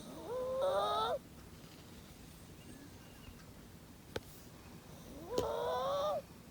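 Yorkshire terrier snoring in its sleep: two pitched snores about five seconds apart, each rising then holding for about a second. A brief sharp click falls between them.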